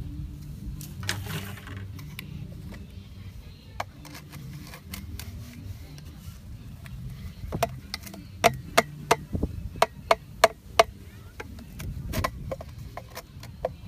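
Hammer tapping a PVC tee fitting down onto a plastic pipe: a quick run of about six sharp knocks, then another knock or two a little later. A steady low rumble runs underneath.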